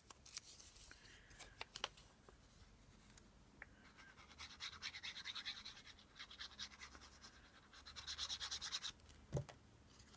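Quick back-and-forth scratchy rubbing on paper in several short spells, with a few light taps of paper handling before it and a soft knock near the end.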